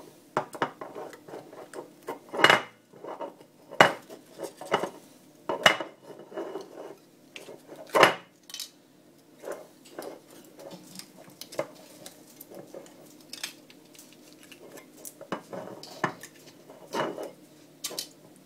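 Aluminium foil lids being peeled off glass custard pots and crumpled: irregular crinkles and clicks, with a few louder knocks of glass on the countertop.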